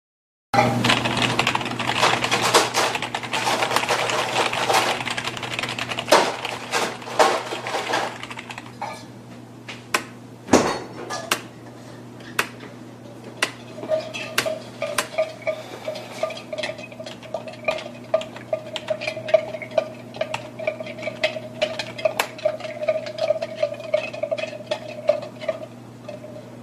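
Keys of an AULA DZI SK-862 gaming keyboard being typed on: a fast, dense clatter of keystrokes for about the first eight seconds, then slower, separate key presses, with one heavier knock about ten seconds in. A low steady hum runs underneath, and a faint steady tone joins it about halfway through.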